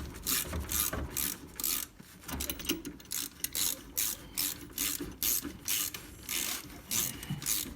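Ratcheting 9/16 wrench clicking in repeated short strokes, turning the bolt of a harmonic balancer puller to draw a stuck blade clutch off a Cub Cadet riding mower.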